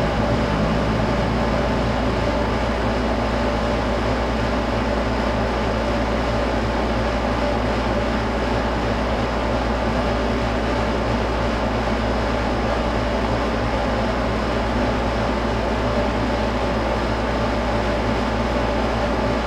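Steady machine hum with a constant hiss, unchanging throughout.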